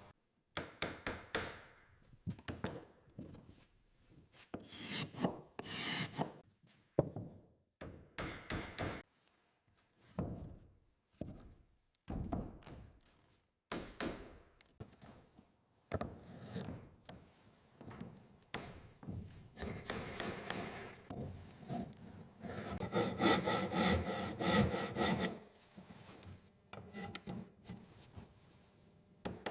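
Hand tools working timber: a string of irregular rasping, scraping strokes on wood with a few sharp knocks between them, and a louder run of strokes about three quarters through.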